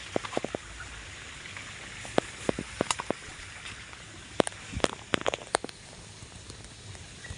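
Steady rain, with heavy drops landing close by as irregular sharp ticks.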